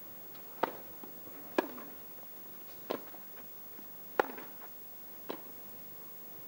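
Tennis rally: rackets striking the ball in turn, five sharp hits about a second apart, with fainter ticks between them.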